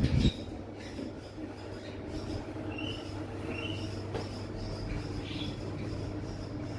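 Old passenger lift car travelling down its shaft: a steady low running hum, with a few faint high squeaks from the moving car.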